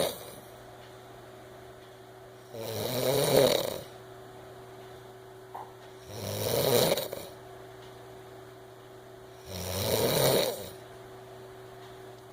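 A person snoring loudly, three rasping snores about every three and a half seconds, each lasting about a second.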